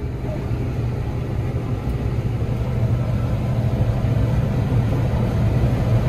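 Steady low drone of a running vehicle engine, growing a little louder toward the end.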